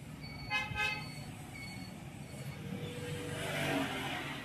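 A vehicle horn sounds twice in quick succession, two short honks about half a second in. Then the noise of a passing vehicle swells, loudest near the end, and fades.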